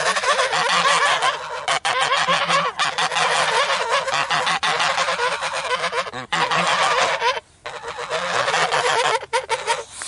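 A group of angry geese honking, with many harsh calls overlapping almost continuously and a brief break about seven and a half seconds in.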